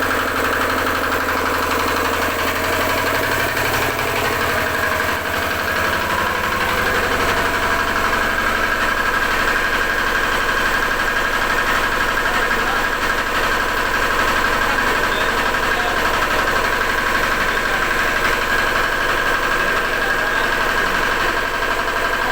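Generator engine running steadily. Its low tone shifts about five seconds in, then holds even.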